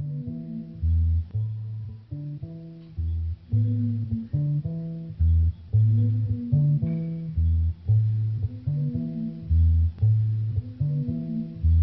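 Background music: a low bass riff repeating about every two seconds, with higher notes above it.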